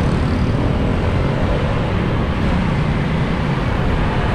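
Dense rush-hour street traffic, mostly motorbikes, as a loud steady noise with no single vehicle standing out.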